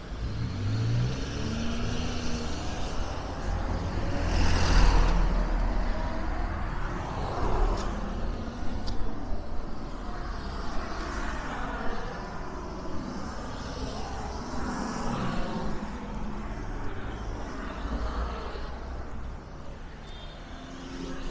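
Road traffic: motor vehicles passing along a street, with the loudest passing close by about five seconds in and others going by after it.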